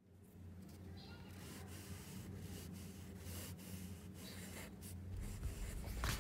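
Pen tip scratching across a printed book page as large letters are written, in short strokes, over a faint steady low hum.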